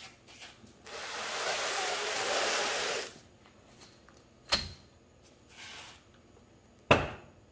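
Paper and plastic packaging rustling for about two seconds, then two sharp knocks as small wrapped parcels of parts are set down on a steel sheet tabletop.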